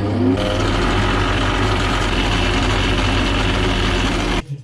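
Suzuki Samurai 1.3 L four-cylinder engine running at a steady idle, ending abruptly near the end.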